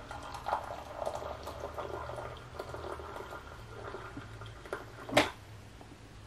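Hot water from a Cuisinart water heater running and bubbling into a small cup, over a steady low hum. A sharp knock sounds about five seconds in.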